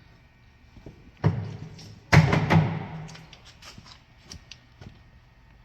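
Car parts being handled in an engine bay: a thump about a second in, then a louder thump about two seconds in that rings on briefly, followed by a few light knocks.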